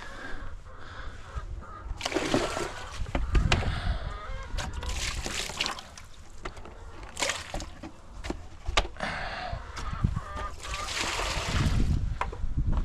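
Ducks and chickens calling, with bursts of water splashing.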